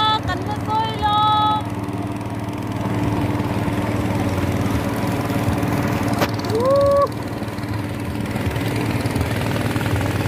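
Motor boat engine running steadily, heard from aboard the boat. A short pitched call rings out at the start, and a brief rising call comes about six and a half seconds in.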